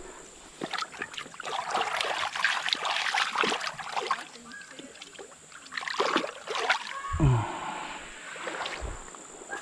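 Water splashing and sloshing in a shallow creek, in irregular crackly spells about two seconds in and again around six seconds.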